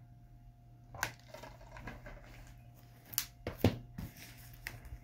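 A plastic DVD case being lifted off a small wire display stand and handled, with several sharp plastic clicks and clacks: one about a second in, a quick cluster around three to four seconds, and one more near the end, over a faint steady hum.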